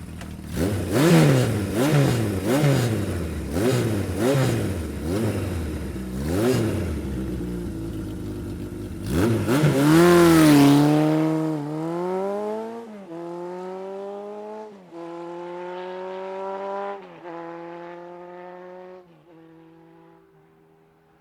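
Kawasaki motorcycle engine being blipped, revving up and dropping back over and over, roughly once a second. The bike then sweeps past with a sharp fall in pitch and accelerates away through several gear changes, each a rising pitch cut off by a drop, fading into the distance.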